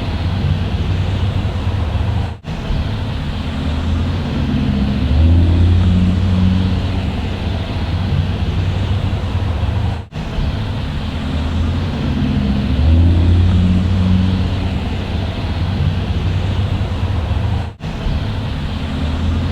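Bus engine running with a steady low drone and a wash of mechanical noise. Its pitch shifts slightly now and then, and the sound drops out for a split second about every eight seconds.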